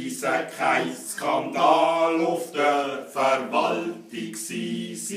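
Men singing a Schnitzelbank verse in Swiss German dialect, with long held notes.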